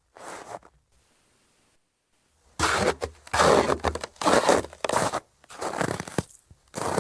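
Footsteps of winter boots crunching in dry, cold snow: one step, a pause of about a second and a half, then steady walking steps resume.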